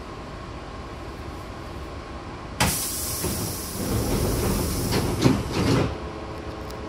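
Hankyu train's double-leaf sliding passenger doors closing. A sudden loud hiss of air starts about two and a half seconds in, the door leaves rumble shut under it with a sharp thump near the end, then the hiss stops and the car's steady hum is left.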